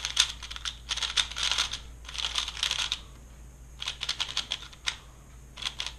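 Valk 3 speed cube being turned quickly, its plastic layers clicking in rapid bursts of turns, with a short pause about three seconds in.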